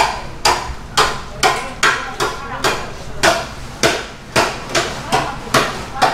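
Knife chopping on a cutting board: a steady run of sharp strikes, a little over two a second.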